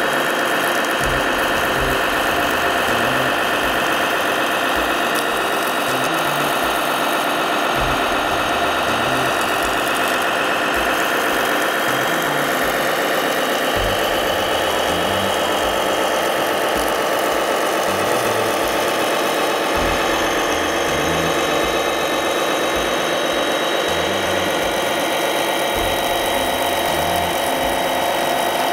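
Radio-controlled model fire truck running steadily while its water pump drives a jet from the roof monitor: an even engine-like drone, with a few short low rumbles now and then.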